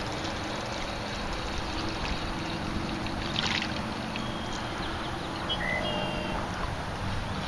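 Steady wind noise with small waves lapping, a brief hiss about three and a half seconds in, and a few short high tones a little later.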